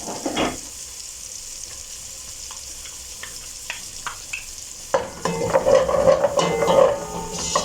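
Chopped onions sizzling in butter in a pan, with a spatula scraping and tapping against the pan. About five seconds in, the sound grows louder and steady tones join it.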